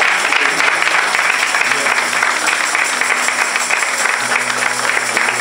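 Congregation applauding, a dense steady clapping, with a faint sustained low musical note underneath from about two seconds in.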